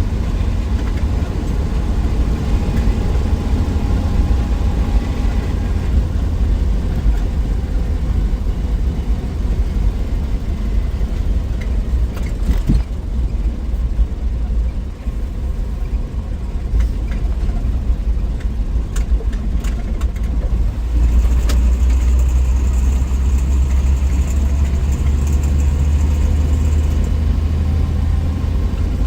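A 1963 Willys Wagon's 230 Tornado overhead-cam straight-six running steadily as the wagon drives, with road noise underneath. The engine dips briefly around the middle and runs a little louder from about two-thirds of the way in.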